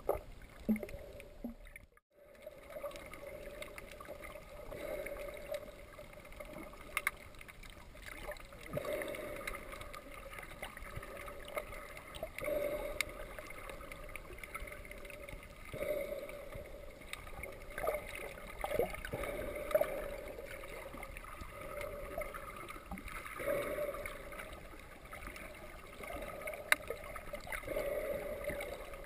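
Scuba diver breathing through a regulator underwater, with a swell of exhaled bubbles every three to four seconds and faint scattered clicks.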